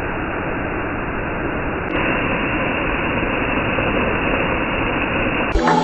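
Steady, even hiss like radio static, with the higher frequencies cut off; it steps slightly louder about two seconds in and gives way to music near the end.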